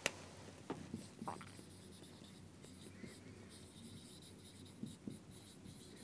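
Marker pen writing on a whiteboard, faint intermittent strokes as a few words are written, after a short click at the very start.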